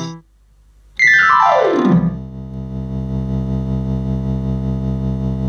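MK-2117 electronic keyboard playing a synth sound: a pitch that glides steadily downward for about a second, then settles into a low note held for several seconds. Another note is struck near the end.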